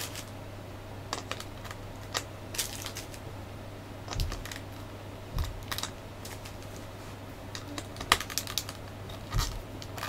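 Hard plastic model-kit parts clicking and tapping together as a figure is handled and its pieces pushed into place, in scattered single clicks and short quick clusters, with a few dull thumps. A steady low hum runs underneath.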